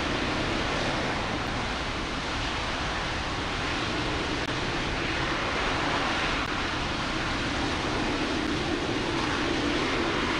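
RS-25 liquid-hydrogen/liquid-oxygen rocket engine firing steadily at full power during a hot-fire test: a continuous, even rush of exhaust noise with a low rumble, unchanging throughout.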